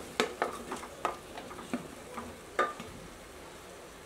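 Pieces of fried chicken tipped from a plate into a pressure cooker of frying masala and stirred in with a wooden spatula. There is a string of about eight soft knocks and taps in the first two and a half seconds over a faint sizzle, then only the low sizzle.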